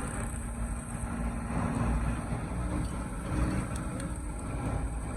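Heavy vehicle engine running steadily with a low rumble, amid road-works machinery noise.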